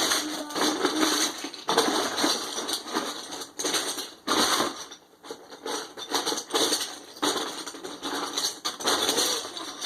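Loose plastic Lego bricks clattering and rattling as hands rummage through a tote of pieces, a continuous jumble of small clicks that dips briefly about five seconds in.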